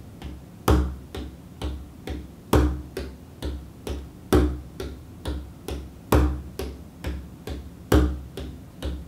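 Bodhrán played with a tipper in a steady reel groove: four even strokes to the bar, a little over two strokes a second, with a deep, bassy accent on every first beat.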